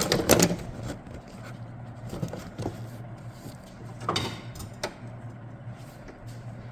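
A few sharp knocks and clatters of things being handled: a cluster right at the start and two more about four and five seconds in, over a steady low hum.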